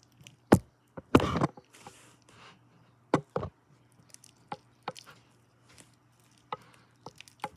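A utensil knocking against a bowl as a thickening slime mixture is stirred: a few sharp knocks, the loudest about half a second and a second in, with lighter clicks scattered between.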